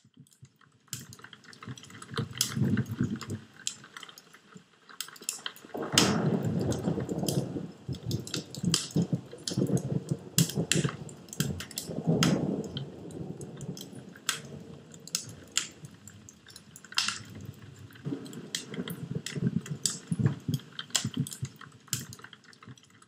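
Wood fire crackling: irregular sharp pops and snaps over a low roar of flame that swells twice, about six and twelve seconds in.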